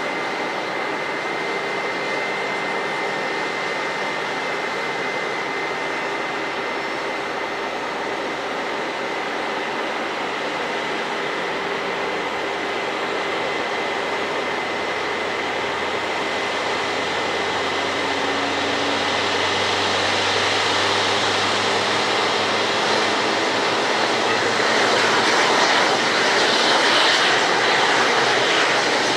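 Jet aircraft noise: a steady high whine over a broad hiss, with the jet roar building up and growing brighter through the second half.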